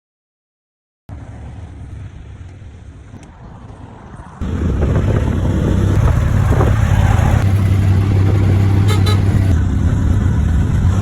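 Road vehicle on the move: a steady low engine rumble with road noise, quieter at first and growing much louder about four seconds in.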